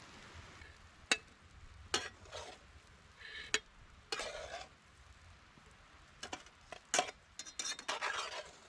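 Steak cooking on a campfire grate: a faint sizzle, then scattered sharp clicks and short scrapes, coming more often near the end.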